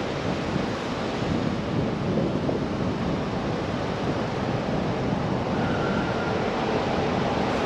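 Steady rushing wind noise on the microphone, with a brief faint high tone about six seconds in.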